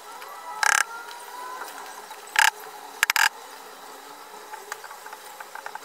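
Power drill run in four short bursts, the last two close together, as when driving screws.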